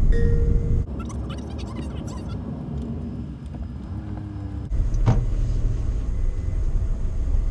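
Low road and engine rumble of a Honda N-VAN kei van driving slowly, heard from inside the cabin. It drops quieter about a second in, with a few faint clicks, and picks up again about five seconds in.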